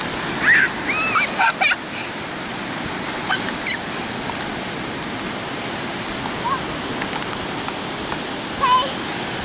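Ocean surf washing steadily onto the beach, with a few short shouts and squeals from children's voices.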